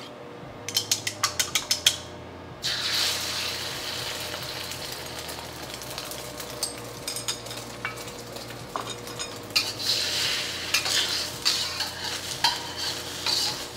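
A quick run of about eight clicks from chopsticks beating eggs in a bowl, then beaten eggs poured into hot oil in a carbon steel wok start sizzling suddenly and keep sizzling. Near the end a metal wok spatula scrapes and clinks against the wok as it stirs the eggs.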